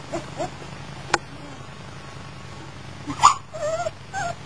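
Young beagle–German Shepherd/Pyrenees mix puppies whimpering in short, high squeaks that bend in pitch. There is a sharp click about a second in, a louder cry just past three seconds, and wavering whines after it.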